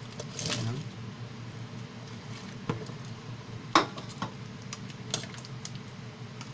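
Diced ube dropped with a splash into a stainless steel pot of simmering coconut milk, then stirred with a ladle that knocks against the pot several times, the sharpest knock a little before the middle.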